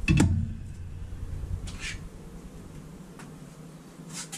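A serving spoon knocks down onto the kitchen counter, with a short low ring, followed by a couple of brief soft rustles over a low steady hum.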